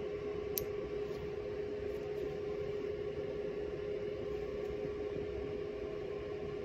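Steady background hum with a constant tone, over which metal toenail clippers snip with one sharp click about half a second in and a few fainter clicks over the next two seconds.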